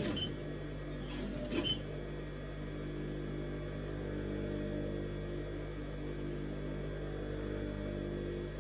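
Electric sewing machine running steadily, its motor stitching a hair weft onto a wig net. About one and a half seconds in there is a brief handling noise.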